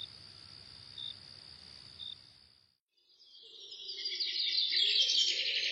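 Night-time crickets: a steady high trill with a short chirp about once a second, fading out a little before halfway. After a brief silence, a chorus of birdsong fades in and grows louder as a dawn sound effect.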